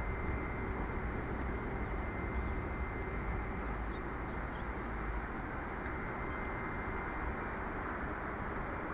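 Boeing 787-9 airliner during pushback: a steady rushing jet noise with a thin, steady high whine over it.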